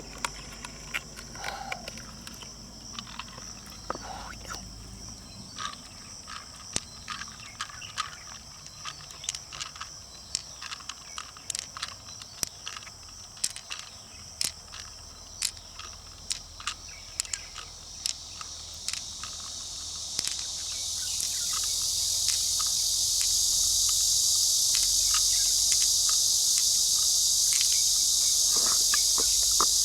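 Outdoor insect chorus with a steady high-pitched buzzing that swells much louder about two-thirds of the way through, over many scattered sharp clicks and taps.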